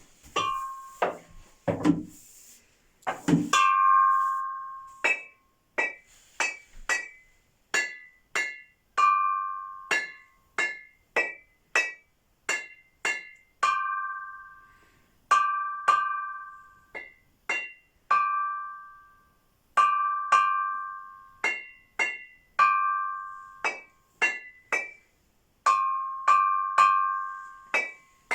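A long series of sharp strikes on something that rings, each note dying away over about a second, at two or three pitches, in an uneven rhythm of about one to two strikes a second, like mallet percussion.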